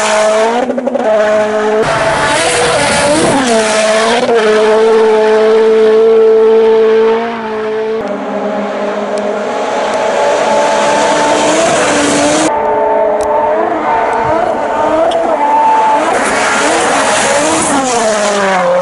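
Toyota Yaris WRC rally car's turbocharged 1.6-litre four-cylinder engine revving hard at speed on a snow stage, the engine note rising and falling as the driver changes gear and lifts off. Several passes are cut together.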